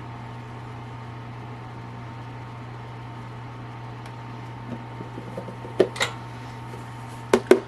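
A steady low hum, like a fan or motor, with a few light knocks about five to six seconds in and a quick run of sharp clicks near the end.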